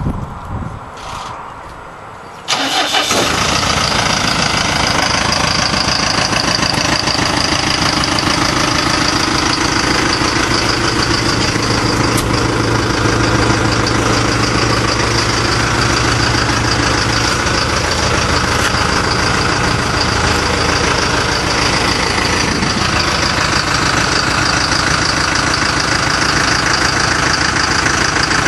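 Truck engine starting abruptly about two and a half seconds in, then idling steadily, heard from inside the cab.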